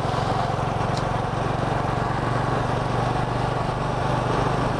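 Small motorbike engine running steadily at low road speed, heard from on board the bike.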